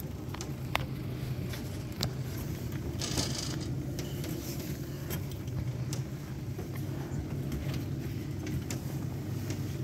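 Steady low mechanical hum of a modified window-washer lift descending on its cable, with scattered light clicks and knocks from the metal basket.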